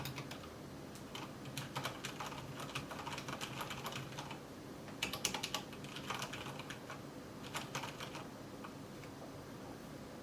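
Typing on a mechanical keyboard: soft, irregular keystroke clicks, with a quick flurry of keys about five seconds in.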